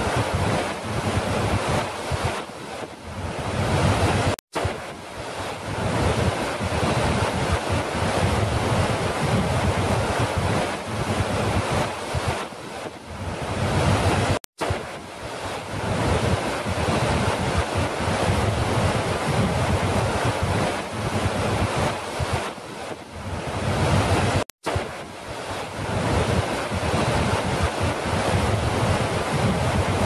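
Large waterfall with a heavy flow crashing over a rock ledge: a loud, steady rush of water. The same stretch repeats about every ten seconds, and the sound cuts out for an instant at each seam of the loop.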